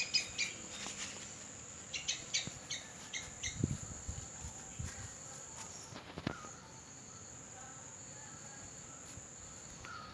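A steady, high-pitched insect drone, like crickets, that breaks off briefly about six seconds in. Over it come quick bursts of bird chirps in the first few seconds and a few dull knocks near the middle.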